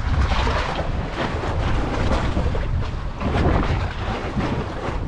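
Wind buffeting the microphone in a continuous low rumble, with sea water surging and splashing among the concrete breakwater blocks.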